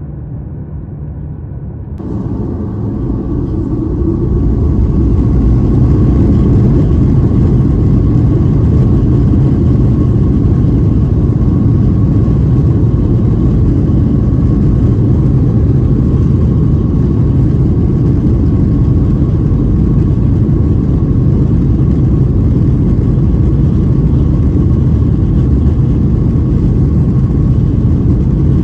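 Boeing 737-800's CFM56-7B turbofan engines spooling up to takeoff thrust, heard from inside the cabin: the noise swells over the first few seconds, then holds as a steady loud roar with a thin high whine through the takeoff roll.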